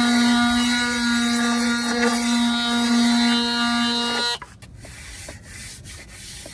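Handheld power tool running at a steady pitch while cutting a notch in the shelf for the water tank's spout, switched off abruptly about four seconds in, followed by faint handling clicks.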